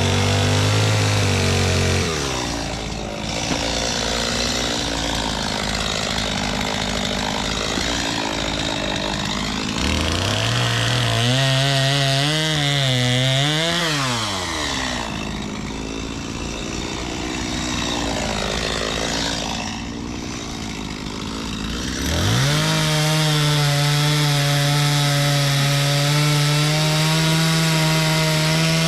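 Chainsaw cutting through the wood of a fallen tree. Its engine drops and labours in the cuts, revs up and down in between, and from about two-thirds of the way in holds a steady high rev.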